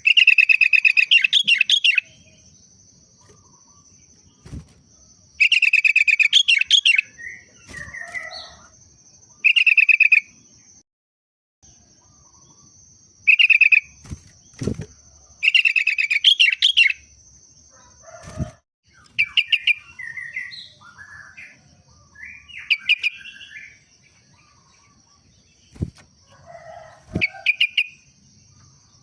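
Sooty-headed bulbul (kutilang) singing: repeated bursts of rapid chattering notes, each lasting a second or two, with quieter short phrases between them. The song is in the manner of a yellow-vented bulbul (trucuk). A few sharp knocks are heard among the phrases.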